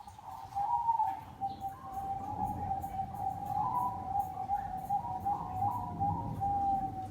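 Bangkok-strain zebra dove (perkutut) cooing in a long run of rolling notes at a steady mid pitch, a bird in full song.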